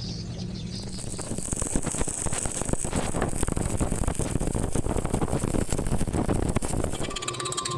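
Stick (SMAW) welding arc crackling steadily as a bead is run on plate, starting about a second in. Near the end it gives way to a rapid, even ticking with a steady tone.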